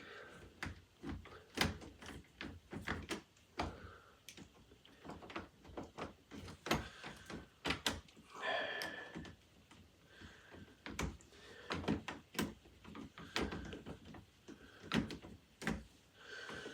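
Irregular light clicks, taps and knocks of a metal interior doorknob and screwdriver as the knob's mounting screws are worked loose and the two halves of the knob shift in the door, with a brief squeak about eight seconds in.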